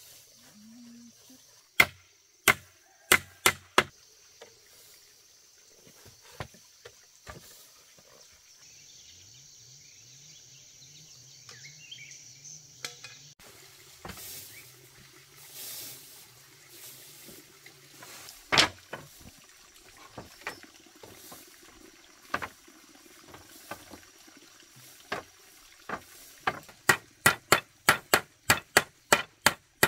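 Repeated sharp strikes of a hand tool: a quick cluster of about five blows, scattered single blows, then a fast run of about three blows a second near the end.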